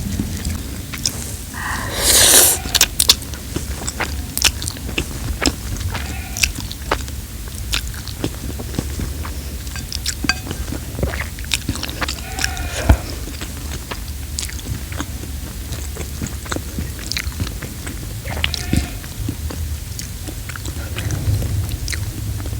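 Close-miked wet chewing and mouth clicks of someone eating soft instant spaghetti carbonara, with a louder burst of mouth noise about two seconds in.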